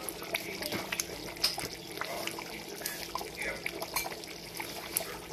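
Thick palm butter soup simmering in a large pot, its surface bubbling with many quick, irregular little pops.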